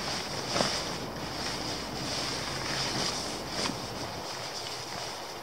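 Steady wind rushing through woodland trees, with a few faint rustles and clicks from a tarp shelter being strung up, the sharpest about half a second in and another about three and a half seconds in.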